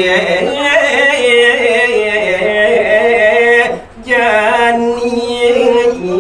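A solo male voice sings a Balinese geguritan tembang without accompaniment. He holds long, wavering, ornamented notes and stops briefly for a breath about four seconds in.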